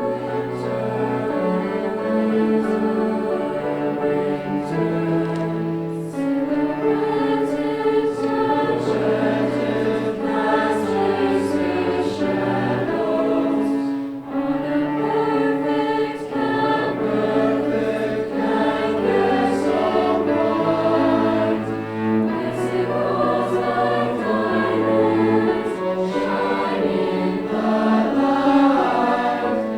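High school choir singing, accompanied by bowed strings that hold long, sustained bass notes underneath.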